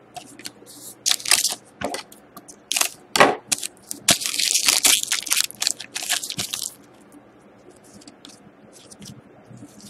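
Foil wrapper of a trading-card pack crinkling in the hands as the pack is opened: short crackles over the first few seconds, then a longer dense crinkle from about four seconds in to nearly seven, after which only faint handling remains.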